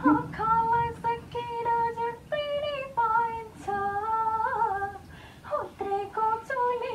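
A woman's high voice singing a slow melody, holding long steady notes and stepping between pitches, played back from a video clip.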